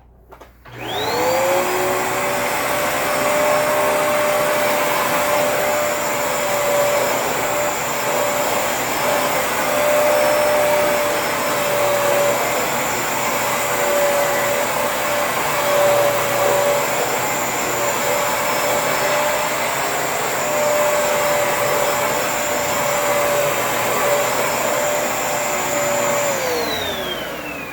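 Dirt Devil cyclonic vacuum cleaner switched on, its motor whine rising quickly to a steady pitch over a rush of airflow, running steadily, then switched off near the end with the whine falling away.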